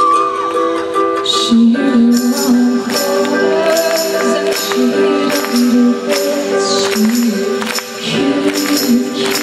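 Live band music at a concert, with sustained chords and a steady percussion beat of regular strokes.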